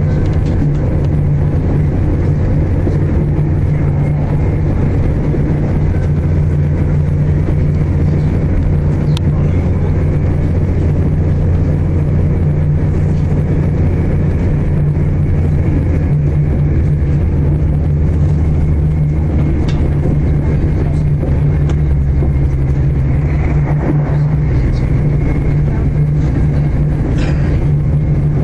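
Virgin Trains Class 221 Super Voyager diesel-electric multiple unit running at speed, heard inside the carriage: a steady low drone from the underfloor diesel engine, with a constant rush of wheel and rail noise.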